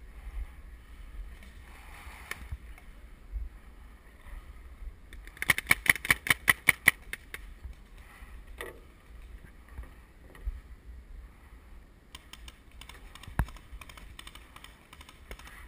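Paintball marker firing a rapid string of about a dozen shots, roughly seven a second, about five seconds in, with one more single pop later. Under it is a low wind rumble on the microphone.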